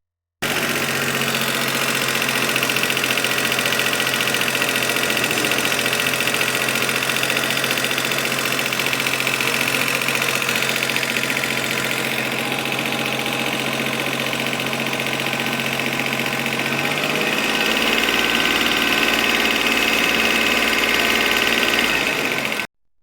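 Car engine idling with a tapping from its hydraulic lifters, the sign of lifters that are faulty or have bled down. The engine's low tone shifts about three quarters of the way through.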